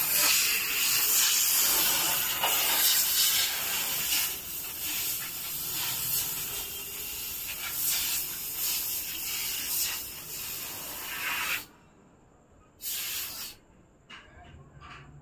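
Crinkling and rustling of clear plastic wrapping around packs of artificial marigold garlands. It cuts off suddenly after about eleven and a half seconds, with one more short rustle a second later.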